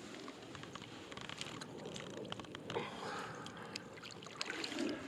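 Shallow water sloshing and splashing around hands as a bass is released, with many small irregular splashes and drips.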